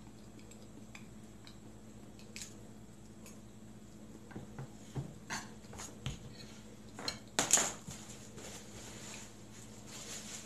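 Metal fork clinking and scraping against a plate while eating, in scattered taps that cluster in the second half, the loudest a couple of sharp clinks.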